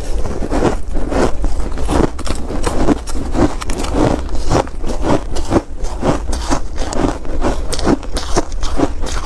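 Shaved ice being bitten and chewed close to the microphone, quick crunches about three a second, with a spoon scraping more ice from the bowl. A steady low rumble runs underneath.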